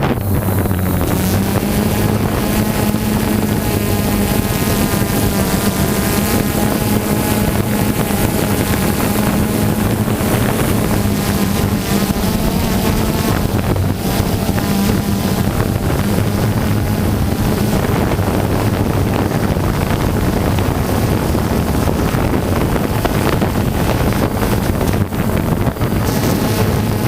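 Motor of the aircraft carrying the camera running at a steady pitch, a constant hum with wind noise on the microphone.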